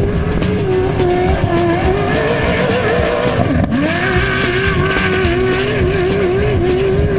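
Off-road race vehicle's engine running hard at high revs, its pitch wavering with the throttle. About three and a half seconds in, the engine note drops sharply and then climbs again.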